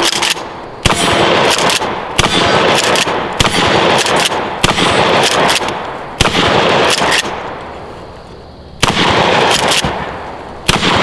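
12-gauge Mossberg 500 Cruiser pump shotgun with a short 14-inch barrel fired in rapid succession: seven loud blasts, about one to two and a half seconds apart. The pump action clacks between shots.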